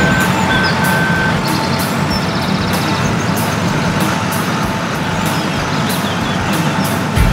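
Added sound effect of a heavy diesel vehicle's engine running steadily, with a reversing beeper sounding three times in the first second or so. Birds chirp faintly over it.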